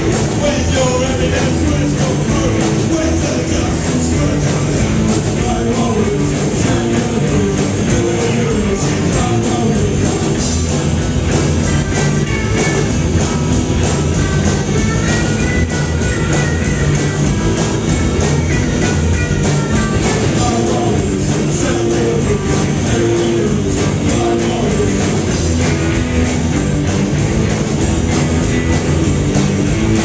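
Rock band playing loud and live, with electric guitars, bass and a drum kit, and a singer.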